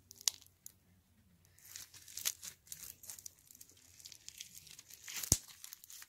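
Crunchy glue slime with foam beads being kneaded and squeezed by hand, giving irregular sticky crackles and snaps, with one sharp pop about five seconds in.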